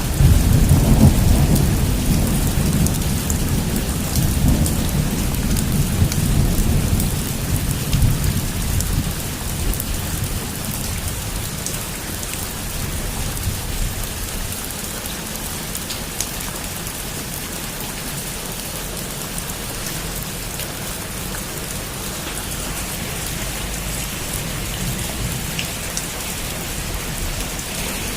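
Heavy rain falling on a roof, with a loud rumble of thunder at the start that dies away over about ten seconds; after that, steady rain with scattered sharp drips.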